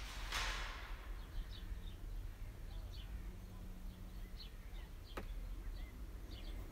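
Faint, scattered bird chirps, with a brief rustle in the first second and a single sharp click about five seconds in.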